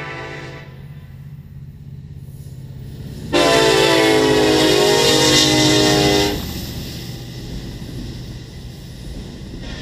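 Horn of a CN SD70M-2 diesel locomotive: the tail of one blast right at the start, then a loud blast of about three seconds as the lead unit passes, over the low drone of its diesel engines. After the horn, the rumble of freight cars rolling by.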